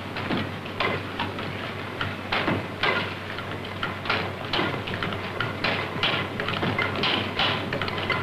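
An early experimental diesel engine being turned over by a drive belt, knocking about twice a second over a steady mechanical clatter. The engine is not running under its own power.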